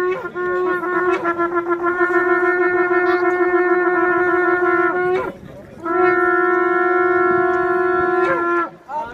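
Long twisted shofars blown in two long, steady blasts on one pitch: the first held about five seconds, then a short break, then a second held about three seconds.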